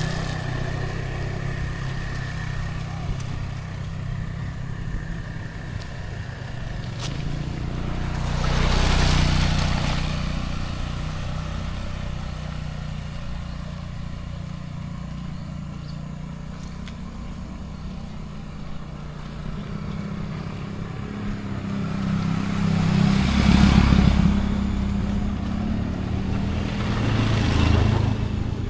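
Motor vehicles passing on a road, with a low engine running throughout. Passes swell and fade about nine seconds in and twice near the end.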